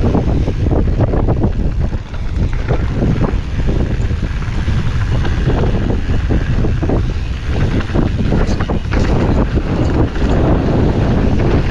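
Wind rushing over the camera microphone during a fast downhill mountain-bike descent, with the tyres running over loose dirt and gravel and the Commencal Supreme DH29 downhill bike clattering over bumps in frequent short knocks.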